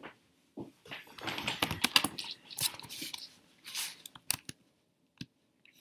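Clicks and rustling from someone working a laptop: keys and trackpad pressed and handled, densest in the first half, then a few scattered clicks.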